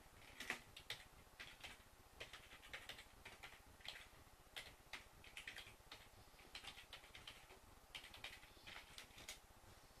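Faint, irregular clicks of typing on a computer keyboard.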